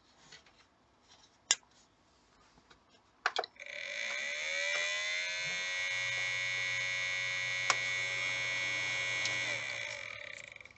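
A few sharp clicks, then the Asrock X570 Taichi's small chipset (southbridge) fan spins up, rising in pitch before holding a steady, loud, grating buzz with a high whine. It fades away near the end. The grating noise is the sign of a faulty chipset fan.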